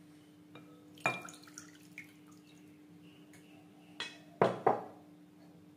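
Water dripping into a glass mixing bowl, with sharp ringing knocks of something against the glass: one about a second in and two louder ones together about four and a half seconds in. A faint steady hum lies underneath.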